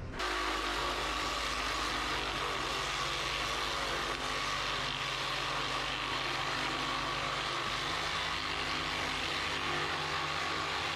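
A steady machine hum at an even level, with low hum tones that shift slightly about eight seconds in.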